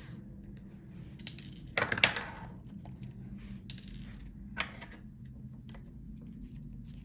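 Scattered small clicks and taps of laptop parts being handled as an internal cable connector is undone and the motherboard freed. The loudest is a short cluster of knocks about two seconds in.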